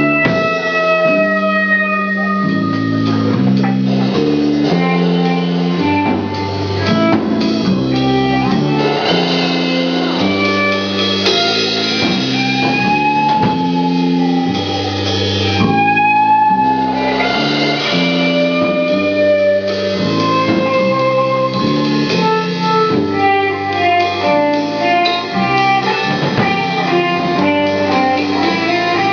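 Stoner rock band playing live and instrumental: electric guitar chords riffing over bass and a drum kit, with a lead guitar line bending and sliding in pitch above them.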